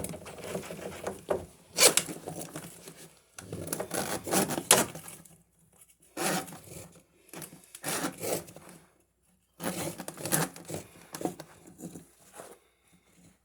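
Scraping, rustling and tearing handling noises from lint and debris being pulled out of a clogged washing-machine drain line. They come in irregular bursts a second or two long, with short pauses between.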